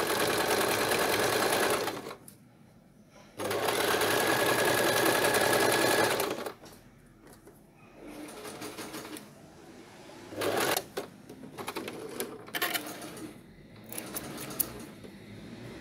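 Domestic electric sewing machine running at a steady speed in two runs of about two to three seconds each, sewing a wide zigzag top stitch. After it stops there is quieter handling noise with a few sharp clicks.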